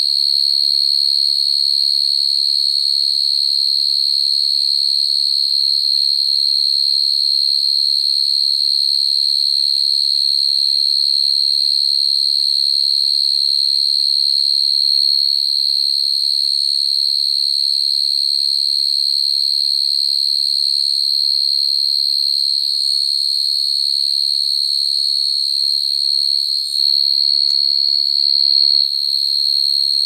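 Field crickets singing their calling song, a continuous high-pitched trill held on one steady pitch, with a brief waver near the end. The males call this way to attract females, which is why the song is played to lure crickets into traps.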